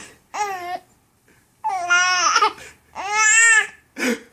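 A baby squealing in short halting bursts: three high-pitched drawn-out squeals, each rising and falling in pitch, with quiet gaps between, and a brief catch near the end. It is her stop-start 'hiccup laugh', a laugh that won't come out fully.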